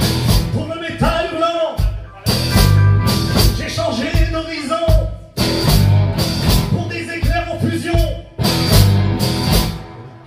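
Live blues-rock band playing an instrumental passage: electric guitars, bass and drums, with a harmonica wailing through the vocal microphone in a bending, wavering lead line. Heavy full-band accents land about every three seconds.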